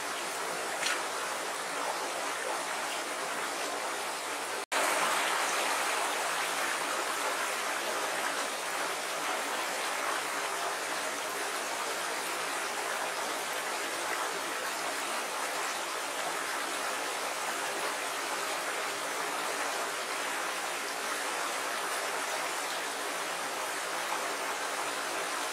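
Small shallow stream running over rocks and stones: a steady rush of water that breaks off for an instant about five seconds in.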